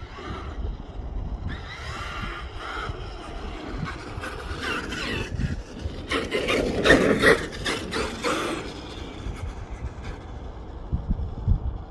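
Traxxas X-Maxx electric RC monster truck driving, its tyres rasping and scraping over the ground. The noise grows and is loudest about six to eight and a half seconds in, then fades.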